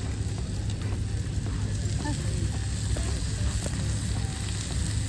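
Shrimp, garlic, tomatoes and onion sizzling steadily on a barbecue grill, over a steady low rumble.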